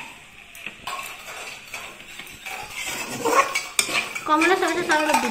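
Metal slotted spatula scraping and clinking against an old iron kadai as noodles and cabbage are stir-fried and tossed, with a little sizzle. A person's voice comes in over it in the second half.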